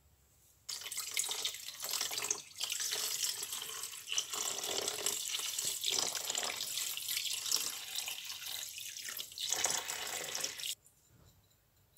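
Liquid poured in a steady stream from a plastic jug into a part-filled plastic tub, splashing into the liquid already there. It starts suddenly about a second in and cuts off sharply near the end.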